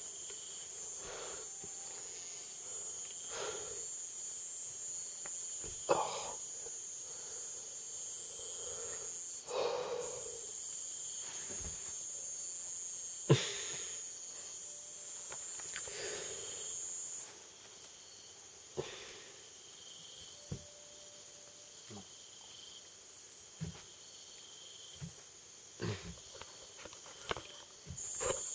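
Night insect chorus: a steady high-pitched trill that stops about two-thirds of the way through and comes back near the end. Scattered sharp knocks, the loudest about halfway, and a few short low sounds from people close by.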